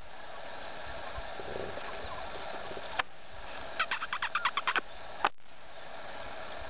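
Garden ambience with birds singing faintly in the background. About four seconds in comes a quick run of about ten short high chirps, and a sharp click follows a moment later.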